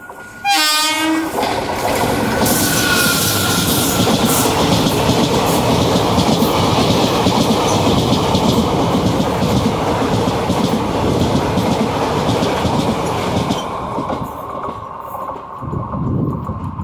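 Electric locomotive of a passenger express giving a short horn blast about half a second in as it draws alongside. Its coaches then pass close on the adjacent track with a loud, steady rattle of wheels for about thirteen seconds, dying away near the end.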